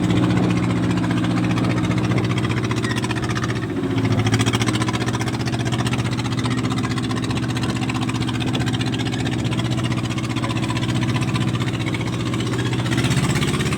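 An engine running steadily with an even low hum, its pitch shifting slightly about four seconds in.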